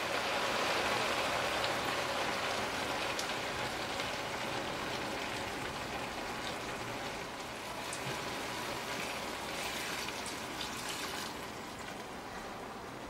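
Diced vegetables and meat sizzling in a frying pan as curry mixed with water is poured in, a dense crackling hiss with scattered sharp pops. The sizzle gradually dies down as the liquid fills the pan and cools it.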